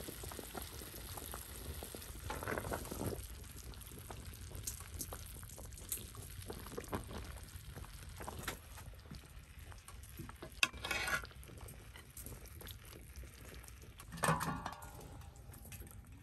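Meat frying, a steady low sizzle with scattered crackles and a few louder bursts of hiss.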